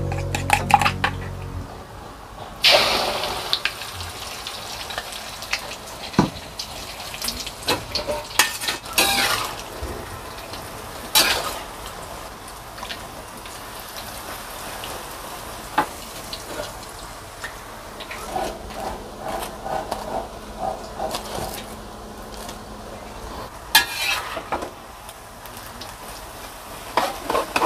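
Hot oil sizzling in a wok as battered tempeh (tempe mendoan) fries, with a metal spatula scraping and clinking against the pan. Near the start a spoon clinks rapidly in a mixing bowl as the batter is stirred.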